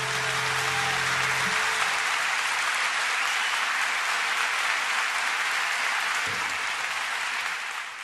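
Steady applause, with the last held chord of the music dying away in the first second and a half. The clapping fades out at the very end.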